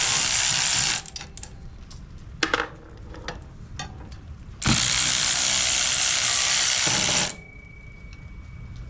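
Power ratchet running in two spells, loosening the bolts of a turbocharger's oil drain tube: one run ends about a second in and another lasts roughly three seconds, with small clicks of the tool and parts between.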